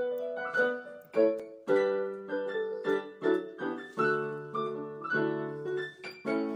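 Portable electronic keyboard on a piano sound, played by two people at once: chords and melody notes struck about twice a second, each note fading after it is struck.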